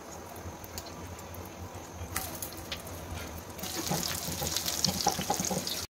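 Shami kababs sizzling as they shallow-fry in hot oil in a pan, a crackling hiss with scattered pops over a low hum. The sizzle gets louder about two seconds in and louder again past the halfway point.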